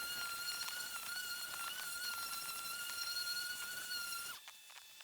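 Griot's Garage 3-inch orbital polisher running with a 3M 5000 grit Trizact foam-backed pad, wet-sanding a plastic headlight lens: a steady high-pitched motor whine that cuts off a little over four seconds in.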